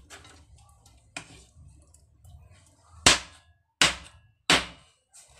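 A knife chopping through roasted pork head onto a cutting board: three sharp, loud chops about two-thirds of a second apart, after a fainter knock about a second in.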